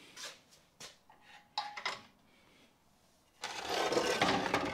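A few light metal clinks, then about three and a half seconds in a loud scraping clatter of a heavy perforated steel angle bracket being moved across a steel welding table.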